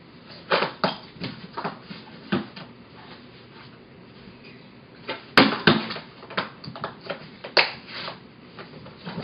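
An irregular series of short, sharp clicks and knocks, about a dozen or more at uneven intervals, the loudest about five and a half seconds in.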